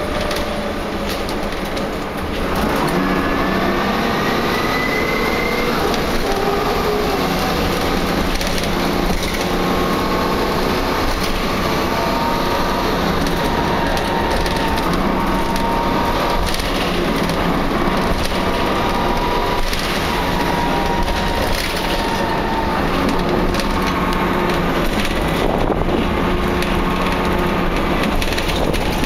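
Cabin noise of a Wright Cadet single-deck bus under way: the engine and driveline running with whining tones over constant rattling of the body and fittings. It gets louder about two seconds in, and a whine rises in pitch shortly after.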